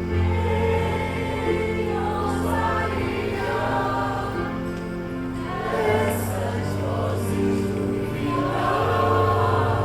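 Music with a choir of voices singing over held low bass notes.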